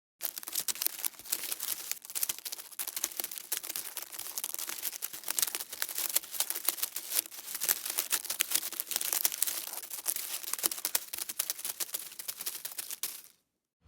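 Tree-growing sound effect: dense, irregular crackling made of many small clicks, like twigs and wood crackling, with a faint steady hum underneath. It runs evenly for about thirteen seconds and then cuts off suddenly.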